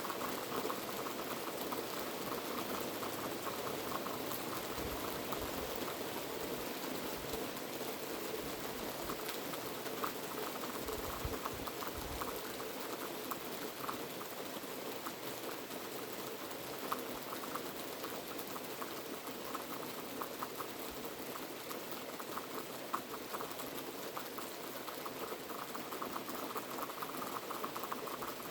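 Heavy rain falling steadily, a dense patter of many fine drop impacts.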